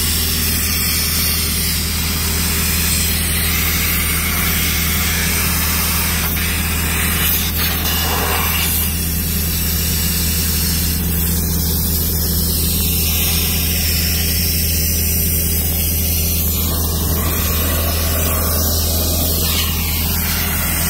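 Compressed-air blow gun hissing steadily as it blows dust out of a Doosan DX55W wheeled excavator's radiator, over the steady hum of an idling engine.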